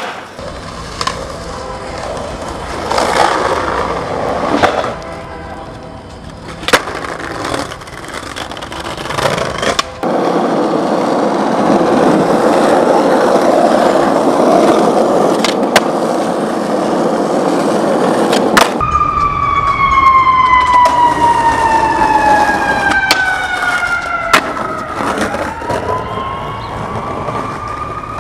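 Skateboard wheels rolling on pavement, with sharp clacks of the board, then a siren wailing whose pitch slides down over several seconds and rises again.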